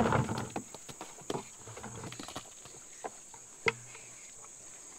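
Vegetable and fruit scraps tumbling out of a plastic bucket and thudding onto the dirt at the start, then scattered knocks as pigs root and eat among them. A steady high insect buzz runs underneath.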